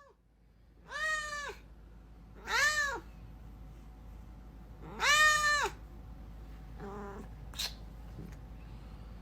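A cat meowing: three loud, drawn-out meows, each rising, holding and falling in pitch, then a fainter fourth meow about seven seconds in.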